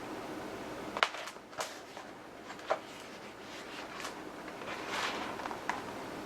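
Pages of a thick hardbound book being turned, with several short paper flicks and rustles spaced unevenly over a faint steady room noise.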